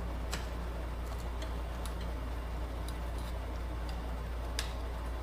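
Irregular small clicks and taps of hand tools working a Polaris RZR XP1000 starter solenoid open, a bad solenoid damaged by water, over a steady low hum.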